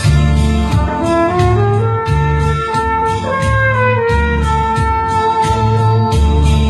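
Trumpet playing a melody over a recorded backing track with bass and drums. Its notes climb step by step, then settle into one long held note in the second half.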